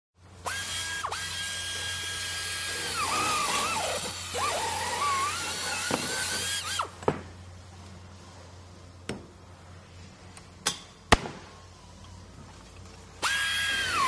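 Power drill running with a high whine, its pitch sagging and wavering in the middle, then stopping about seven seconds in. A few sharp knocks follow, and the drill starts up again near the end.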